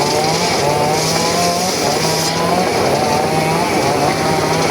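Circular saw running loud and steady through very hard sogho wood. The pitch wavers as the blade works through the cut.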